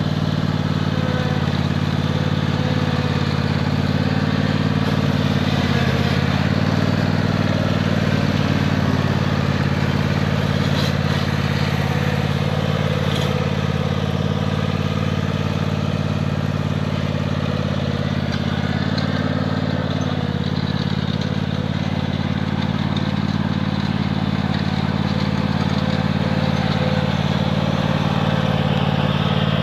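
Riding lawnmower engine running steadily while mowing, with the mower-mounted string trimmer working; the engine's pitch dips briefly about six seconds in.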